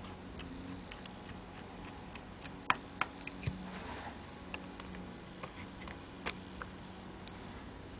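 Small sharp clicks and taps of metal keywork and hand tools as a clarinet's lower joint is taken apart, coming irregularly, the loudest about 3 seconds and 6 seconds in, over a faint steady hum.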